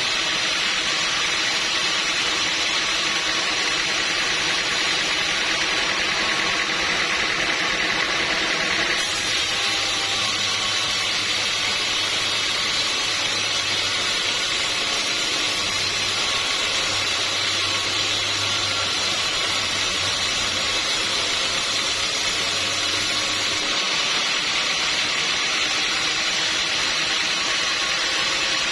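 Sawmill machinery running steadily with a constant whirring hiss. A low hum joins abruptly about nine seconds in and drops out suddenly a few seconds before the end.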